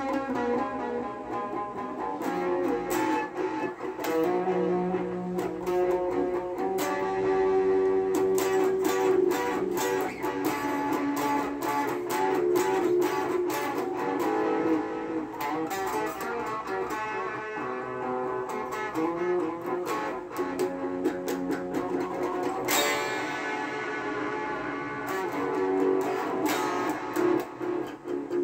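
Electric guitar, a Stratocaster-style solid body, played as a run of picked single notes and riffs. About three-quarters of the way through comes one sharp, hard-struck attack.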